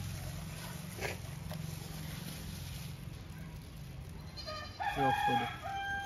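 A rooster crows near the end, one long call that rises, holds, breaks and holds again, over a steady low hum.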